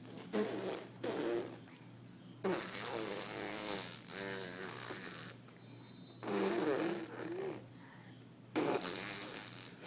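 A young child making noises: several bursts of lip-buzzing, raspberry-like sounds mixed with wavering voiced squeals and coos, not words.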